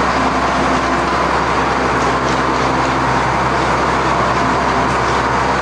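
Tractor engine running steadily as it pulls a feed mixer wagon along the feed alley.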